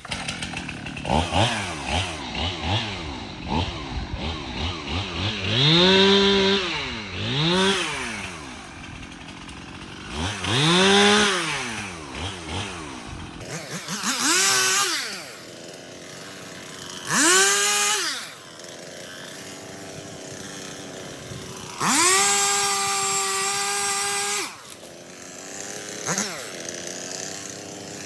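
Stihl two-stroke chainsaw revved up and back down again and again, dropping to a lower running speed between revs, then held at high speed for about two and a half seconds near the end.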